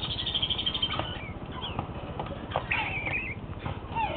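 Parrot chicks calling: short, chirpy rising and falling squeaks and a raspy buzzing call, mixed with scattered clicks.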